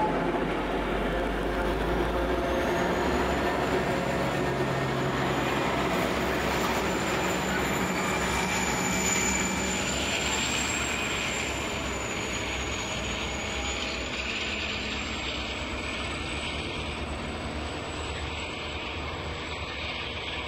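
Three diesel-electric locomotives (BL30, G520 and X48) running light under power, a deep engine rumble with a thin high whine above it. Loudest as they pass, then fading steadily as they pull away.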